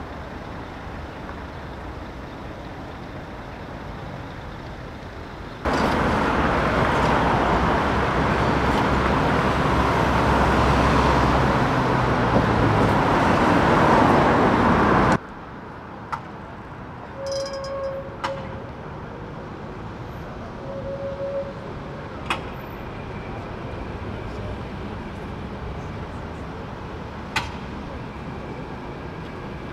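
Tatra K2YU tram running with street traffic around it. For about nine seconds from about six seconds in, a much louder close-up rumble with a steady low hum cuts off abruptly. Quieter traffic noise follows, with a few sharp clicks and two pairs of short tones.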